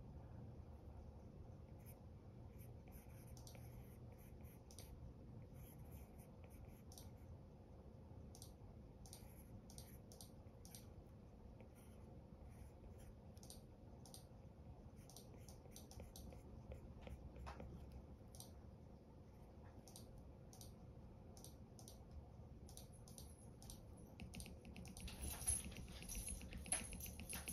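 Apple Pencil tip tapping and scratching faintly on an iPad's glass screen while sketching, a scatter of short irregular clicks. Near the end come quicker, louder taps as the pencil hits the undo button.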